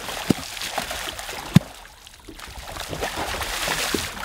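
Hooked alligator thrashing at the surface beside a boat, water splashing in two bouts with a lull about two seconds in. A single sharp knock comes about a second and a half in.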